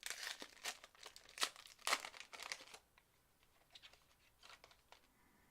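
Plastic packaging crinkling and tearing as a trading-card box is opened, busy for about three seconds, then a few faint rustles.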